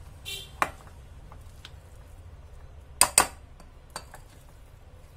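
Metal spoon scraping and clinking against a glass bowl while stirring a thick semolina and curd mixture: a short squeaky scrape and a click near the start, then two loud sharp clinks about three seconds in and a lighter one a second later.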